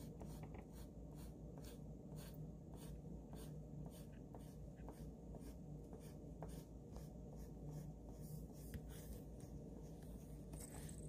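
Graphite pencil scratching on paper in quick, repeated short strokes, about two to three a second, as an area of a drawing is shaded in. The sound is faint.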